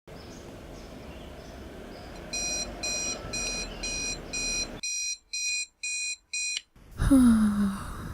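Electronic alarm beeping, high-pitched pulses about two a second for roughly four seconds and then stopping. It is followed by the loudest sound here, about a second long, with a pitch that falls.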